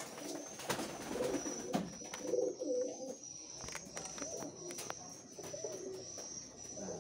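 Domestic pigeons cooing, several low wavering coos that are thickest in the first half and fainter toward the end.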